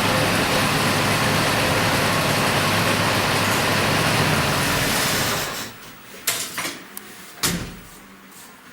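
Volga engine with a K151 carburettor running steadily, then switched off about five seconds in. A few sharp knocks follow.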